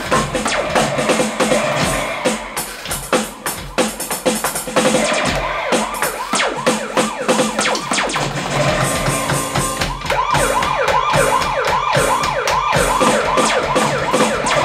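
Yamaha DTX Explorer electronic drum kit played through a powered monitor: a busy groove of fast kick, snare and cymbal hits, turning after about ten seconds into a run of quick, evenly repeated tom strokes.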